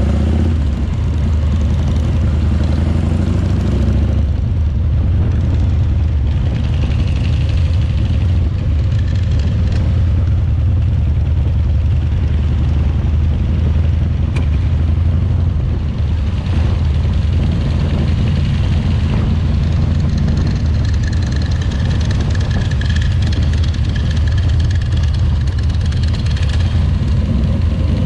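Harley-Davidson Shovelhead V-twin motorcycle engine running steadily, with a continuous low pulsing rumble.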